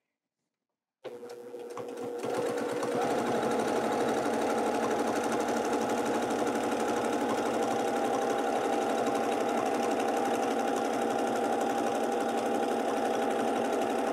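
Domestic sewing machine stitching free-motion quilting through a quilt sandwich: it starts about a second in, speeds up over the next two seconds, then runs fast and steady.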